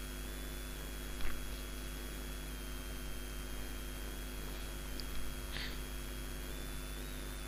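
Steady low electrical hum and hiss from the recording chain, with a thin high whine that wavers slightly. Two brief faint noises come about a second in and again about halfway through.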